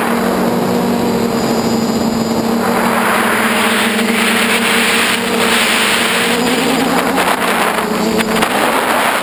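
Motors and propellers of an FPV model aircraft buzzing at a steady pitch, heard from the onboard camera, with wind rushing over the microphone. The pitch wavers and dips for a moment near the end as the throttle changes.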